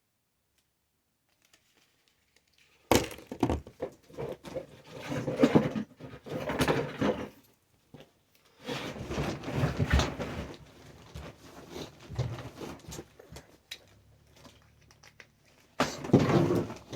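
Plastic tablet casing being handled and pried at, starting about three seconds in: a run of irregular clicks, knocks and cracking snaps, likely the back cover's clips.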